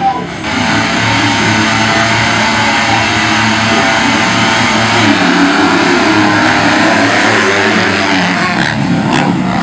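A pack of MX2 motocross bikes revving together at high revs at the start and pulling away. It makes a dense, loud mass of engine noise that swells about half a second in and then holds steady.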